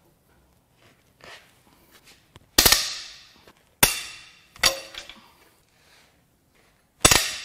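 Cylinder head bolts on a rusted Vortec 454 big-block Chevrolet cracking loose under a long breaker bar: four sharp metallic cracks, each ringing briefly, the last near the end.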